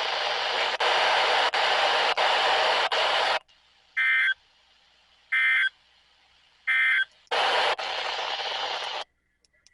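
NOAA Weather Radio SAME digital alert data coming through a Midland WR120 weather radio's speaker as a loud, harsh buzzing burst in several short segments, sending the codes for a required weekly test. About four seconds in, the radio gives three short electronic beeps about a second and a half apart. A second buzzing data burst follows near the end.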